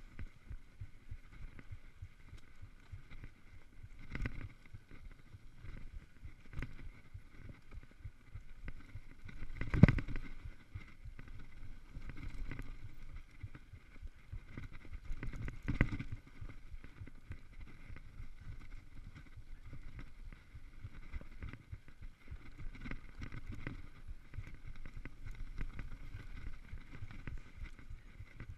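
Mountain bike rattling and rumbling down a rough dirt singletrack, the frame and tyres jolting over bumps and rocks. Sharp knocks come about four, ten and sixteen seconds in, the one about ten seconds in the loudest.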